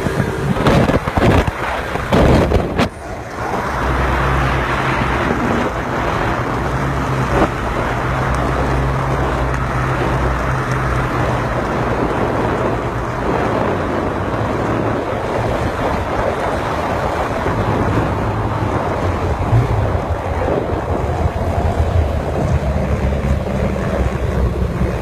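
An engine running at a fairly steady pitch over a constant rush of water spray, with wind noise on the microphone. There are several sharp knocks and gusts in the first three seconds.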